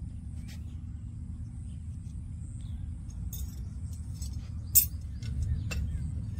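Scattered metallic clinks and clicks of a lineman's pliers and line hardware on a power pole, with one sharp click just before five seconds in, over a steady low rumble.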